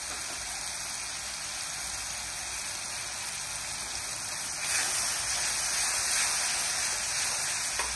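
Ground chili, shallot and garlic paste frying in oil in a pan: a steady sizzle that grows louder a little past halfway as the paste is stirred with a wooden spoon.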